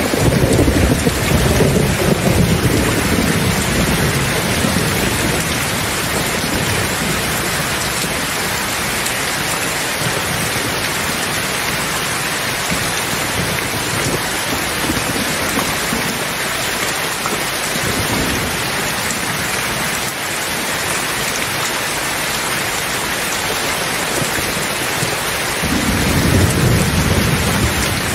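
Steady rain with thunder: a low rumble dies away over the first few seconds, and another rolls in near the end.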